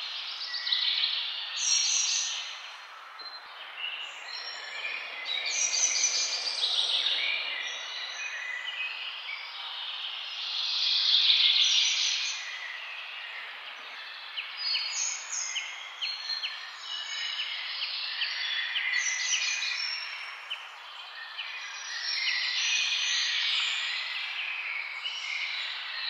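Several songbirds singing and calling at once, short repeated chirps and trills overlapping one another, over a steady background hiss.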